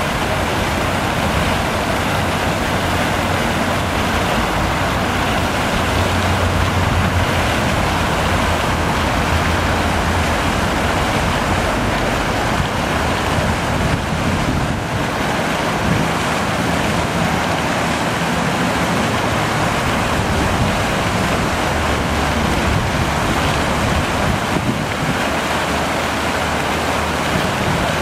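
Rows of vertical fountain jets spraying up and splashing back into their basin: a steady, loud rush of falling water.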